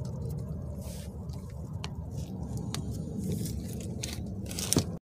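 Light scrapes and clicks of hands handling parts and the camera, over a steady low outdoor rumble, with a sharper click just before the sound cuts off.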